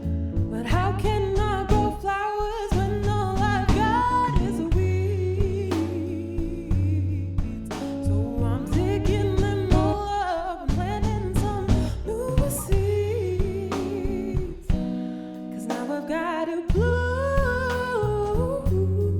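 Woman singing a soulful song over a band of guitar, bass and drums.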